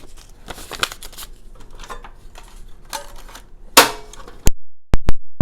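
Handling of a metal cash box and its cash tray: soft rustling and small clicks, then a run of sharp, loud clicks and clacks in the last second and a half.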